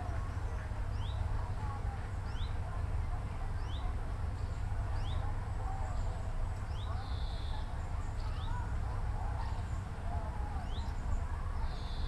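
Eurasian blackcap fledgling calling: a short, high note that sweeps upward, repeated about once a second, while it waits to be fed. Under it runs a steady low rumble.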